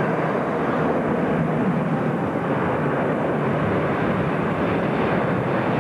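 Jet engines of a McDonnell Douglas MD-11 trijet at climb-out power just after takeoff: a loud, steady roar of engine noise that holds even throughout.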